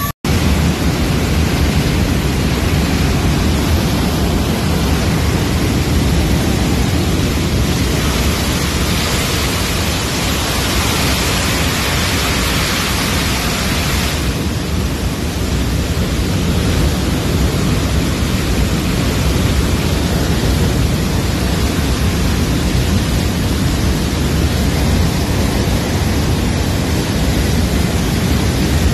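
Steady, loud turbine roar of a C-17 transport aircraft heard inside its cargo bay with the rear ramp open, a deep rumble under a wide hiss. The hiss grows brighter for several seconds around the middle, then settles back.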